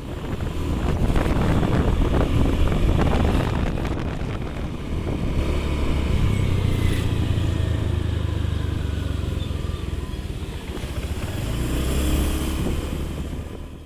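A motor vehicle's engine running, with road noise; the engine note steps up in pitch about six seconds in and drops back near the end.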